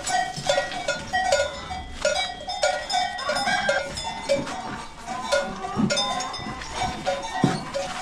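Background music: a quick, repeating melody of short notes.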